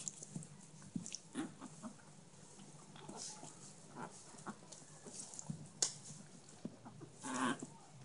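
Young chihuahua puppies squeaking and whimpering as they tussle, with soft rustling and scuffing of the pad under them; a louder squeal comes about seven seconds in.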